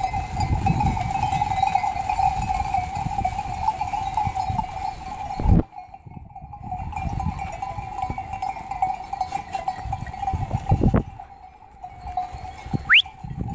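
A large flock of sheep moving past at close range, with a steady high ringing throughout and rumbling, brushing noise low down. The sound drops out briefly twice, about halfway through and again near the end, and a short rising whistle comes just before the end.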